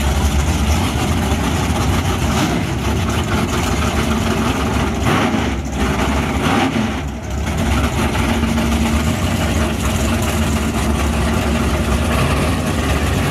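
Nitrous Buick Regal drag car's engine idling loudly and steadily at the starting line, with one short dip in level about seven seconds in.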